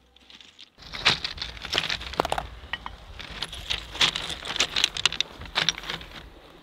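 Rounded beach pebbles clacking and crunching as a person kneels, sits and shifts about on them, many small irregular clicks over a low steady rumble, starting about a second in.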